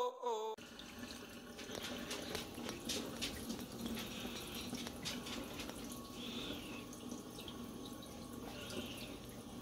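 A music clip cuts off about half a second in. After it comes a faint, steady watery hiss like running water, with two brief high chirps near the middle and near the end.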